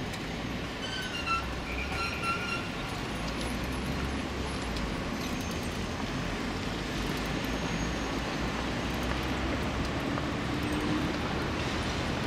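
Steady outdoor city noise of distant traffic, with a low rumble through the first few seconds and a few short high squeaks about one to two seconds in.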